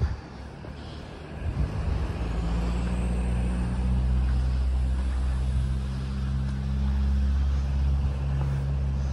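A motor vehicle's engine running steadily with a low rumble, growing louder about a second and a half in and staying so.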